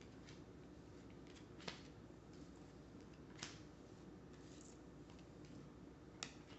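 Near silence over a steady low room hum, broken by three faint clicks of cards being handled.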